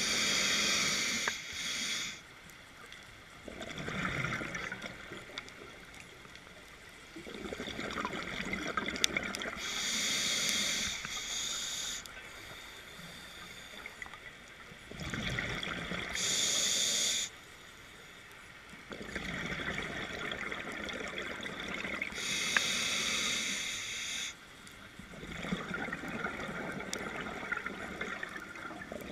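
Scuba regulator breathing underwater: four slow breaths, each a hissing inhale through the demand valve followed by a longer burbling rush of exhaust bubbles.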